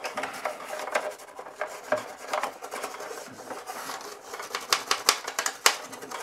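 A toothbrush scrubbing back and forth over the ridged plastic hull of a vintage Imperial Shuttle toy, a continuous scratchy rubbing studded with small clicks as the bristles catch on the moulded edges. The clicks come sharper and louder about five seconds in.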